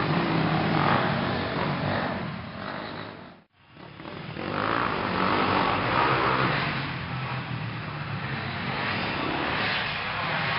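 Dirt bike engines running and revving as riders go round a dirt track. The sound cuts out briefly about three and a half seconds in.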